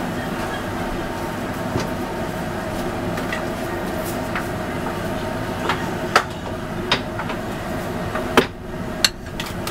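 Steady mechanical hum with several fixed tones, with a few sharp clicks and knocks in the second half as a ceramic plate is handled on the counter.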